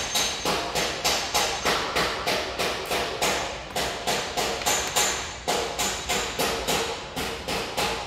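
Rapid, evenly spaced sharp knocks with a short ring after each, about three a second, like steady hammering on metal.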